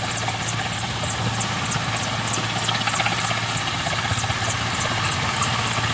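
Helicopter running steadily: a continuous low drone with a regular high hiss pulsing about three times a second.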